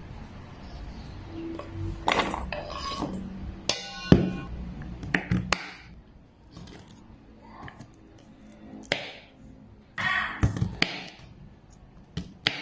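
Kitchen knife cutting yardlong beans on a wooden cutting board: irregular knocks and scraping, with a sharp metallic ping about four seconds in.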